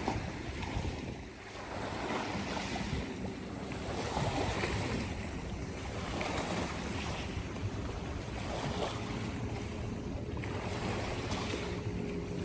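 Lake water washing and lapping under wind on the microphone: a steady rushing noise that swells and eases irregularly.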